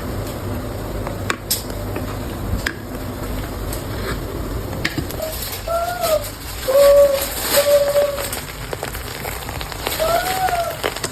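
Pot of coconut rice cooking on the stove with a steady sizzling hiss, broken by a few short clicks. About halfway through and again near the end come several brief, short-lived voice-like tones.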